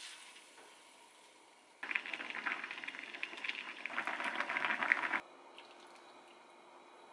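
Hot sujebi soup being ladled with a metal ladle into a wooden bowl: liquid pouring and splashing with small clicks and bubbles. It starts suddenly about two seconds in, lasts about three seconds, and cuts off abruptly.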